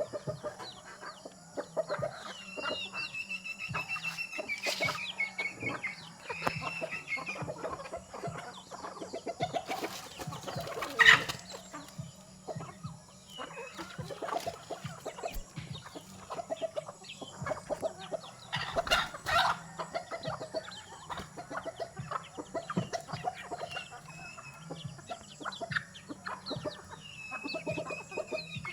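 Chickens clucking and calling at feeding time, with many short taps and clicks throughout and a sharp knock about eleven seconds in. A couple of drawn-out higher calls stand out, one early and one near the end.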